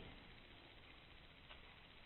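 Near silence: room tone, with the fading tail of an echoing noise at the start and one faint tick about a second and a half in.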